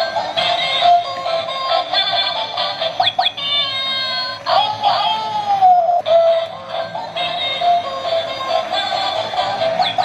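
Battery-powered walking toy cat playing a tinny electronic tune through its small speaker as it rolls along, with a few gliding sound effects around the middle.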